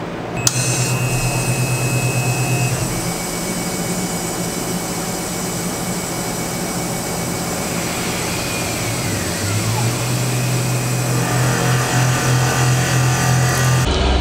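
Tormach CNC mill running, not yet cutting: a steady hiss with a low motor hum that comes and goes as the spindle and tool move down toward the aluminium block. There is a click about half a second in, and a faint whine that rises and falls about eight seconds in.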